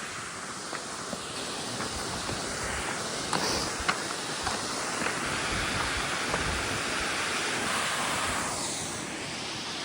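Waterfall: a steady rush of falling water that swells a little after the first second and eases near the end, with some wind on the microphone.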